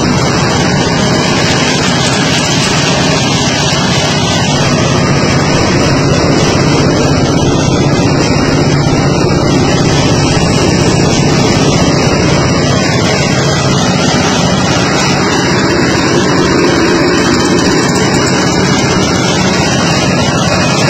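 Motor-driven coconut grater and coconut-milk press machine running steadily, a constant loud mechanical hum.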